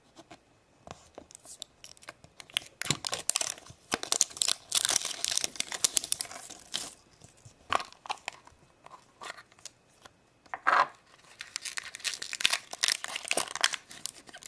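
Plastic wrapping being torn and crinkled by hand as a plastic toy surprise capsule is unwrapped and opened. The rustling and clicking comes in irregular bursts, with a short pause and then one louder crackle about three-quarters of the way through.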